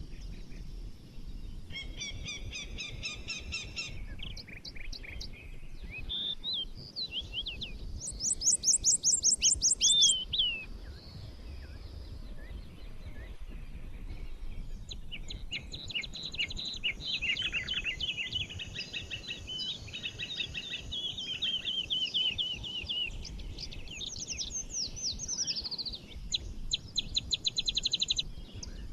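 Several birds singing and chirping in a forest. A loud, fast trill comes about eight seconds in, a long warbling song follows in the middle, and more quick trills come near the end, all over a low background rumble.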